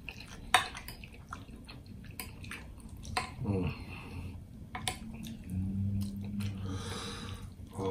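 Close-miked wet chewing and smacking of creamy shrimp Alfredo pasta, with a sharp click of a metal fork on the plate about half a second in. Two short hummed sounds come from the eater: one falling in pitch a few seconds in, and a steady one near the end.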